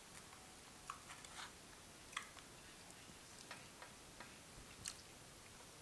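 Faint, irregular small clicks and crackles of fried chicken being pulled apart by hand and chewed, over a steady microphone hiss.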